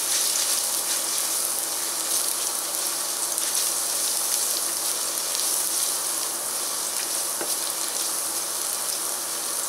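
Minced garlic sizzling steadily in hot oil in a stainless steel pot while it is stirred, frying briefly until it turns translucent.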